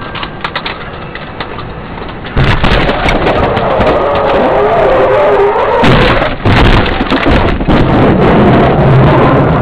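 Car crash heard from inside the car through its dashcam: road noise, then a little over two seconds in a sudden loud impact, followed by several seconds of continuous crashing, scraping and cracking as the car spins across the road.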